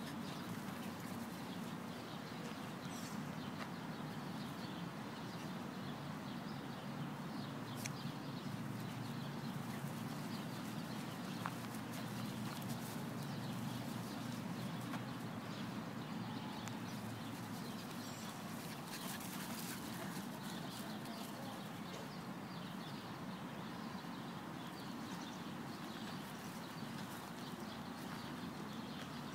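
Two dogs play-fighting on snow, a steady run of scuffling and animal noises.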